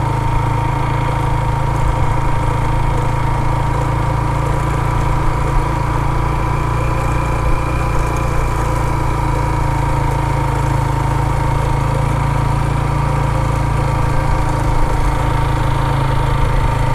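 Motorcycle engine running at a steady, low speed while riding, heard from on the bike, with a steady whine above it.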